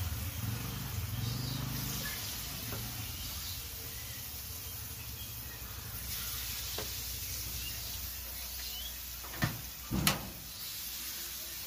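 Batter-coated munthiri kothu balls deep-frying in a wide aluminium pan of hot oil over a wood fire, a steady faint sizzle, with two sharp knocks about half a second apart near the end.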